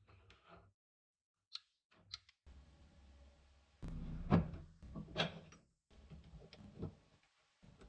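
A series of sharp knocks and clunks, the loudest two about halfway through, over a low steady hum that starts a couple of seconds in.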